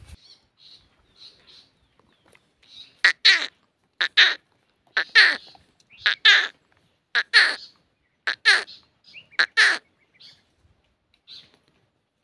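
A bird calling loudly and harshly, about seven double calls roughly a second apart beginning about three seconds in, with fainter calls before and after.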